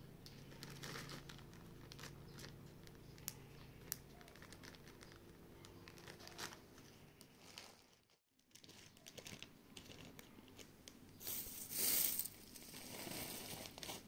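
Plastic zip-lock bags of dried rosebuds crinkling as they are handled, with light ticks as the dry buds are poured out. The sound breaks off briefly just past halfway, and the loudest crinkle comes near the end.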